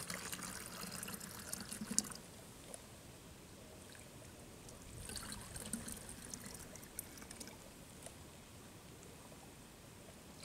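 Water being poured and trickling, in two short spells a few seconds apart.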